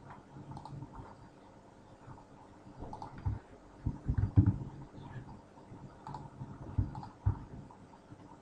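Computer mouse clicks and a few keyboard keystrokes at a desk, with dull low thumps among them, the loudest a cluster about four seconds in.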